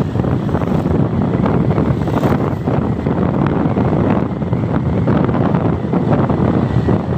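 Loud, steady low rushing of wind buffeting the microphone of a camera carried along a road in a moving vehicle.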